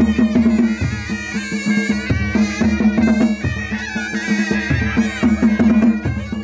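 Traditional Ladakhi dance music: a reedy wind instrument plays a wavering melody over a steady held drone, with a deep drum stroke about every 1.3 seconds and lighter strokes in between.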